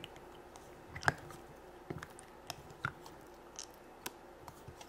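Fingers squishing and digging in sticky green slime inside a small plastic toy toilet: scattered soft squelches and small clicks, the loudest about a second in.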